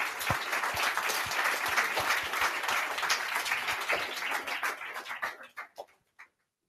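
Audience applause: many people clapping at once, thinning to a few scattered claps after about five and a half seconds.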